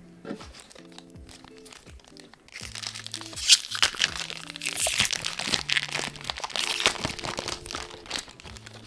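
Foil wrapper of a Pokémon booster pack crinkling and tearing as it is ripped open and crumpled. It starts about two and a half seconds in, runs for several seconds, and is louder than the background music.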